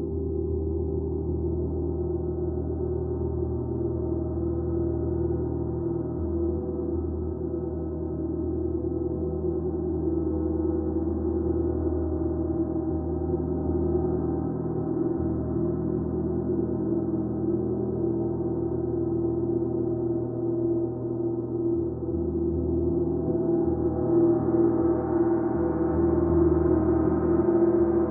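Gong ringing in a sustained, dense wash of overlapping low tones with no distinct strikes. It swells louder and brighter near the end.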